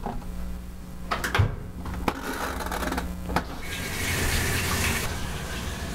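A few knocks and clunks of handling at the washer, then liquid running and splashing into a top-loading washing machine's tub for a second or two, tailing off near the end.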